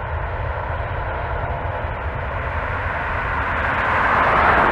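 Jet engine noise from a Boeing 787-9 rolling on the runway: a steady rush that swells to its loudest near the end.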